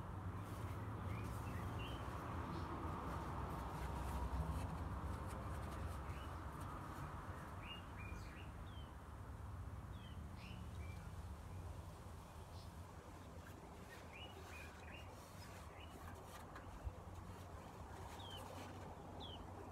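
Small birds chirping in short, high calls, on and off, over steady outdoor background noise, with a single sharp click about three quarters of the way through.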